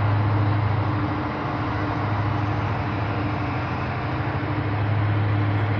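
Towboat's diesel engines drone steadily as it pushes a loaded barge, with a constant deep hum and a fainter higher tone over a wash of noise.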